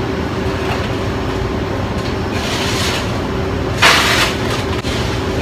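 Commercial ice machine running with a steady hum, with two short rattling rushes of ice being scooped from its bin, about two and a half and four seconds in, the second the louder.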